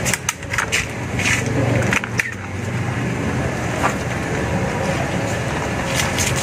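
Grapevine leaves and shoots rustling and crackling as they are handled, with several short sharp clicks, most in the first two seconds and again near the end, over a steady low hum.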